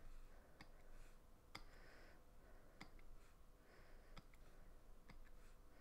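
Faint, separate clicks of a computer mouse pressing on-screen keypad buttons, about one a second, in near silence.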